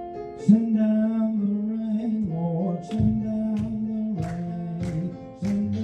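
Instrumental intro of a worship song: a band playing held chords over a steady bass line, with sharp percussion hits every half second to a second.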